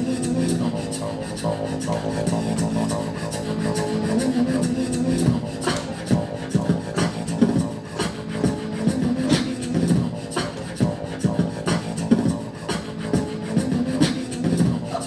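Beatboxing. For the first five seconds or so it is a held, humming vocal bass line, and from then on it turns into sharp, rhythmic vocal kick and snare beats.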